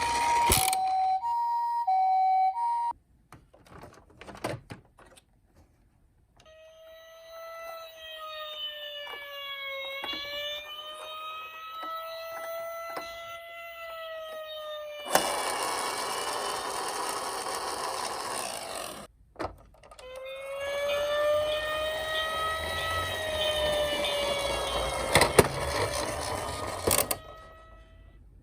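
Toy minicar siren sounds. A hi-lo two-tone ambulance siren plays and cuts off about three seconds in. After a few seconds of faint clicks, an electronic wailing siren rises and falls slowly, gives way to a loud rushing noise, then wails again.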